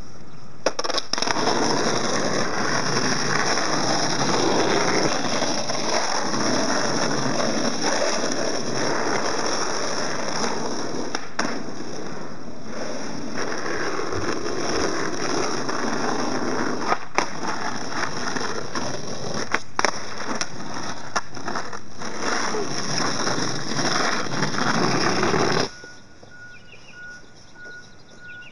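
Skateboard wheels rolling on rough asphalt: a steady gritty noise with a few sharp clicks, which stops suddenly near the end.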